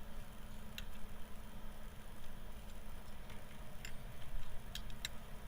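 A few sharp little clicks of hard plastic as a stubborn electrical connector's locking clip is pried and worked by hand, over a steady low hum.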